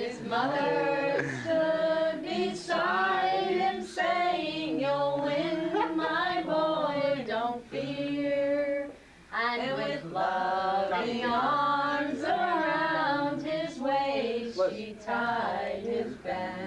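A group of voices singing a song together without accompaniment, with a short break about nine seconds in.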